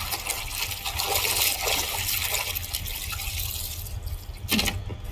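Hands swishing and squeezing pieces of dried stingray in a pot of rice-washing water, with continuous sloshing and small splashes. The soak and wash draw the salt out of the dried fish.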